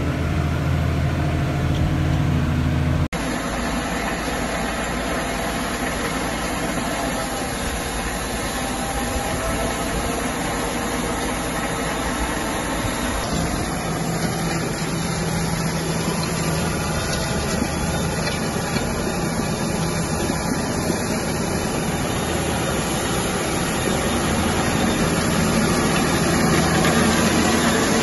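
Tractor engine running steadily under load as it pulls a seed drill through heavy ploughed soil. It is heard from inside the cab at first, then, after a sudden change about three seconds in, from outside in the field.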